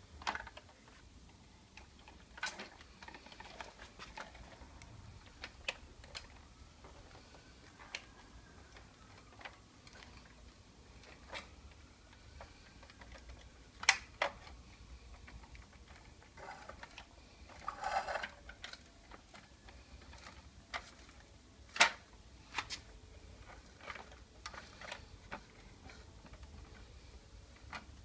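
Plastic clicks and knocks from a Bruder toy tractor and low-loader trailer being handled and driven onto the trailer deck, irregularly spaced, with two sharper knocks about halfway and about three quarters through and a short scrape between them.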